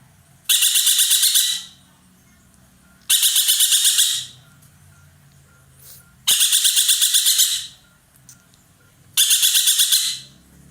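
Ekek keling bird calling loudly: four high-pitched rattling calls, each about a second of rapid notes at roughly ten a second, repeated every three seconds or so.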